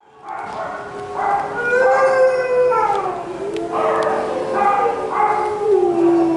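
Dogs howling: several long, drawn-out howls that overlap and slide down in pitch.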